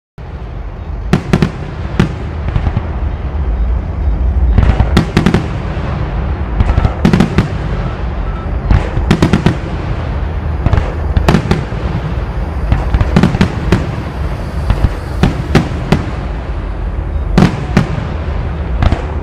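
Aerial fireworks shells bursting in quick succession: sharp bangs and crackles, often in clusters a second or two apart, over a steady low rumble.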